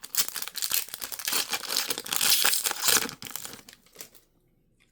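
Foil Pokémon TCG booster pack wrapper crinkling and tearing in the hands, a dense rustle that stops about four seconds in.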